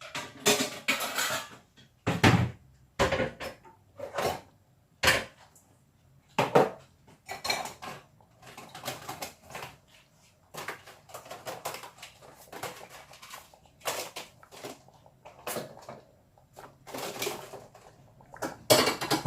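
Kitchen clatter: pots, pans and metal utensils handled and set down, giving irregular clinks and knocks.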